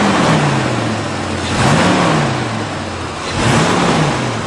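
1991 GMC Syclone's factory-turbocharged 4.3-litre V6 being blipped: engine speed rises and falls back toward idle three times, about two seconds apart.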